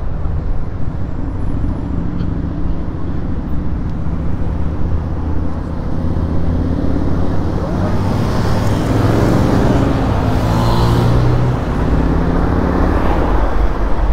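Street traffic with a vehicle engine running close by, swelling as it passes about eight to twelve seconds in.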